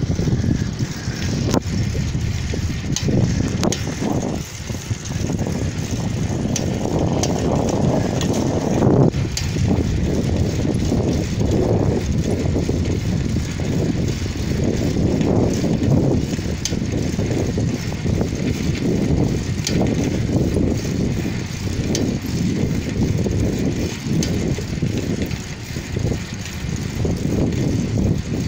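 Wind buffeting a phone's microphone while riding along a road: an uneven, gusting rush with scattered faint clicks and rattles.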